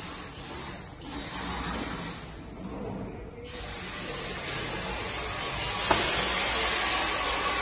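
Mado Selekta 3 stainless-steel band saw running with no load: a steady whirring hiss that settles in about halfway through. A single click near the end.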